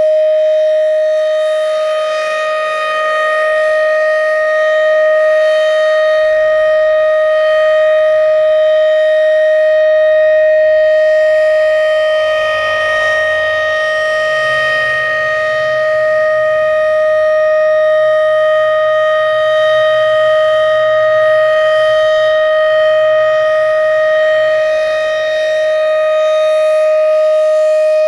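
Federal Signal Thunderbeam RSH-10 rotating outdoor warning siren sounding its full-alert signal: one loud, steady, unwavering tone. The loudness swells and dips slightly a few times as the horn turns.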